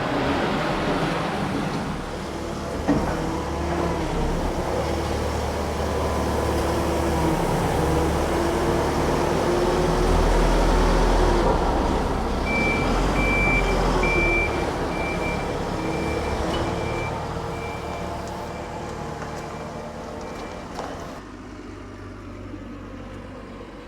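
Heavy farm diesel machinery running, its engine note rising and swelling through the middle, then dropping away near the end. Partway through, a reversing alarm beeps about twice a second for several seconds.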